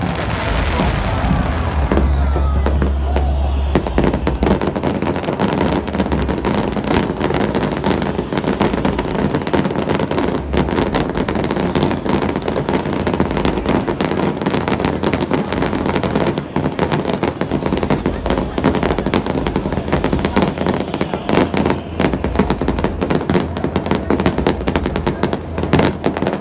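Fireworks display: aerial shells bursting in a dense, rapid run of bangs and crackles, with a heavy low rumble a couple of seconds in before the bursts thicken.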